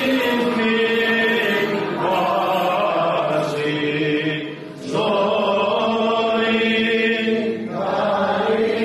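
Man's voice singing Greek Orthodox Byzantine chant, drawn out in long held, gently wavering notes, with a short break for breath about halfway through.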